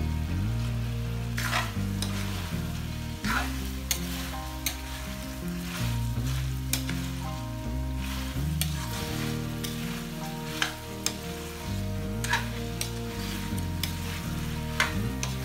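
Chicken pieces, tomatoes and bell pepper strips sizzling in a metal wok, stirred with a metal spatula that scrapes and knocks against the pan about once a second.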